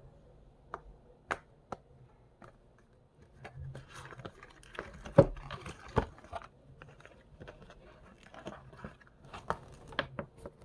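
Thin cardboard packaging being handled and opened: scattered taps and clicks with rustling and crinkling of card, and two louder knocks about five and six seconds in.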